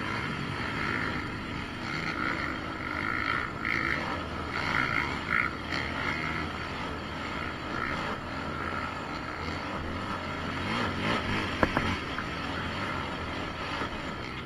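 Yamaha Raptor 700 quad's single-cylinder engine running, its level rising and falling, with a couple of sharp knocks about three-quarters of the way through.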